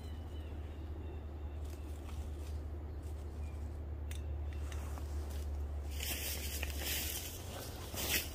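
Steady low rumble of wind on the microphone, with about two seconds of rustling starting some six seconds in.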